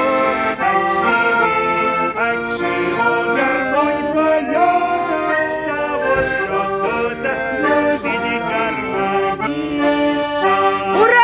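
A Russian garmon, a small button accordion, playing a folk melody over chords, with no singing.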